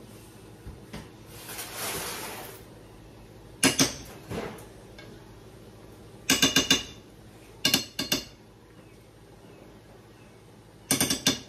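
A metal spoon knocking against a nonstick frying pan in quick clusters of clinks as scoops of butter spread are shaken off it, four times. A short scratchy scrape comes about two seconds in.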